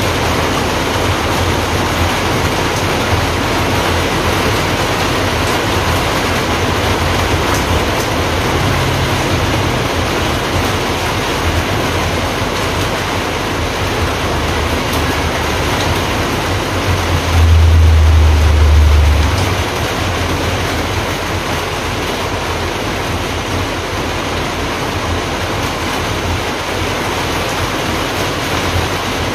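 Steady, loud hiss with no distinct events. A low rumble swells for about two seconds a little past the middle.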